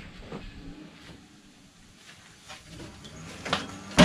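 Craftsman LT2000 lawn tractor being tipped off its side back onto its wheels: scattered knocks and rattles of the chassis, then a loud clunk near the end as it comes to rest.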